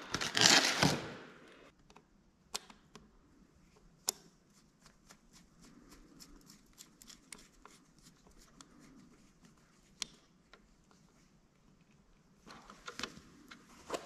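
Hands handling small parts and tools: a louder rustling clatter in the first second, then sparse light clicks and taps, growing busier near the end.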